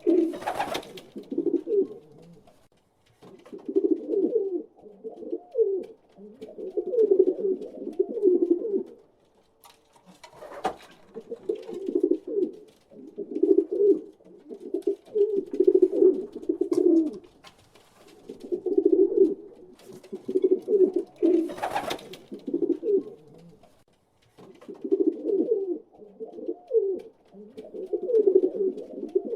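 Pigeons cooing in a steady run of low phrases of a few seconds each, with short pauses between them. A few brief sharp noises cut in, the loudest about half a second in and about two-thirds of the way through.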